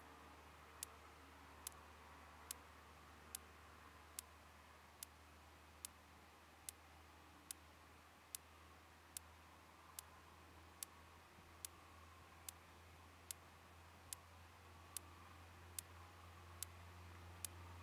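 Faint low drone of a Robin DR400 light aircraft's engine as it taxis, getting louder near the end as it comes closer, with a sharp tick repeating a little more than once a second.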